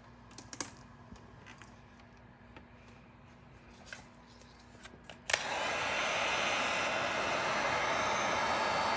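A few faint clicks, then about five seconds in a heat gun switches on and blows steadily, heating the vinyl wrap film on the grille trim.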